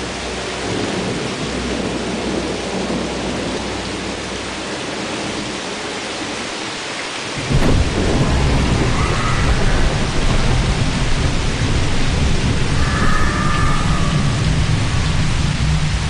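Steady rain hiss, then about halfway through a loud, deep rumble from the sky sets in suddenly and continues, with faint higher wavering tones over it twice. This is the kind of sound circulated as the 'sky trumpet' or 'judgment trumpet'.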